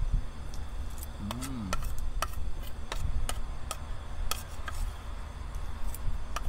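A spoon clinking and scraping against a plate in irregular sharp ticks as the last spoonfuls of fried rice are eaten, over a low rumble.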